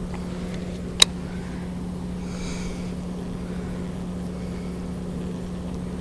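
A steady low mechanical hum, like a motor running at a distance, with one sharp click about a second in.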